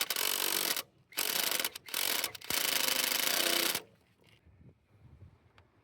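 Impact wrench hammering on a seized, rusted bolt in four rapid rattling bursts, stopping a little before the end; the bolt does not break loose.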